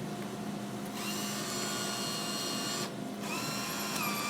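Vending machine bill acceptor motor whirring as it draws in a paper bill. It stops briefly about three seconds in, then runs again at a lower pitch, returning the bill as the machine refuses it. A steady low machine hum runs underneath.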